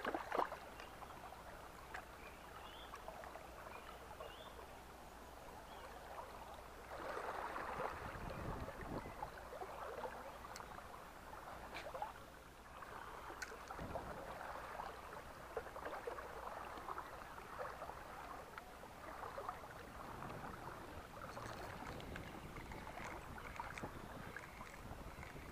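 Shallow river water splashing as a chub is let go by hand, then water sloshing and lapping around a wading angler, with a few small clicks.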